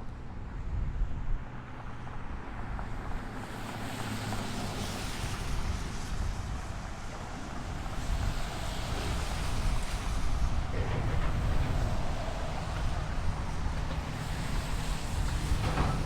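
Wind buffeting the microphone over the steady low running of a demolition excavator's diesel engine. A broad hiss swells about three and a half seconds in and stays.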